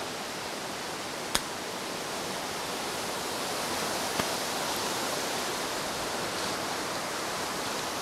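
Wind gusting steadily, a rushing noise that swells a little midway, with one sharp click about a second and a half in.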